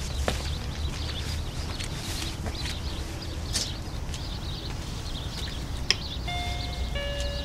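A click as the button of a wall-mounted door intercom is pressed, then its electronic doorbell chime: a higher tone followed by a lower one, near the end.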